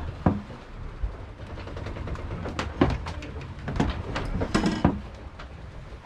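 A handful of sharp knocks and clacks spread over a few seconds, ending in a short rattling clatter near the end, like something being handled or shifting about.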